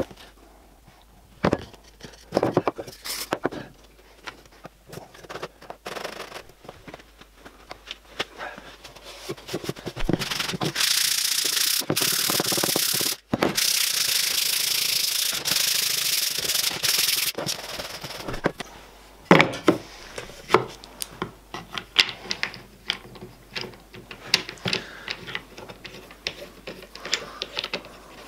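Plywood jig parts and tools knocked, slid and rubbed on a wooden workbench, with scattered knocks and clatter. In the middle a loud steady hiss runs for about seven seconds, broken once.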